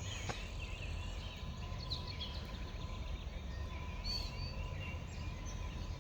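Several songbirds chirping and singing over a steady low rumble of outdoor background noise.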